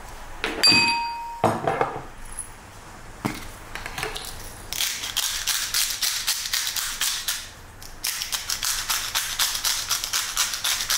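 Glass spice grinder twisted by hand over meat, its mill ratcheting in fast even clicks in two long runs with a short break between them. A sharp glassy clink rings out about a second in.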